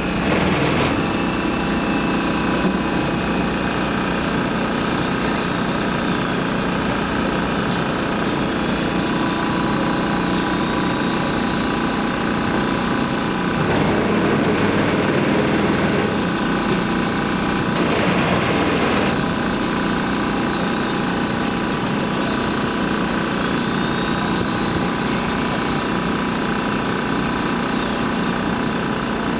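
Steady engine drone of a fishing boat, with a faint high whine above it that slowly wavers up and down in pitch.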